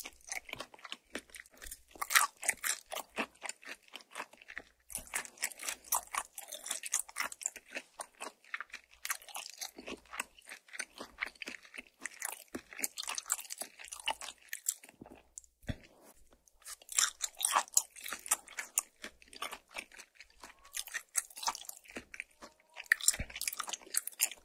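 Close-miked chewing of a mouthful of air-fried makchang: crunchy, wet chewing in quick irregular clicks, with a few short pauses.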